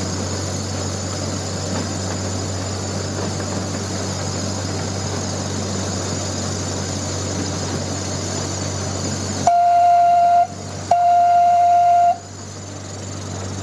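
Zoo train running with a steady rumble and hum, then its whistle sounds two blasts of about a second each, one clear pitch, near the end.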